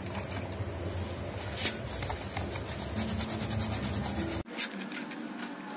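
A hand scrubbing the plastic lid of a lead-acid battery with wet washing powder, a steady rubbing sound. A low background rumble cuts off abruptly about three-quarters of the way through.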